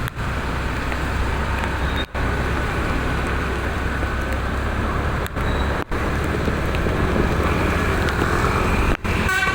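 Bus engine running with a steady low hum under road and traffic noise, with three very short drops in the sound.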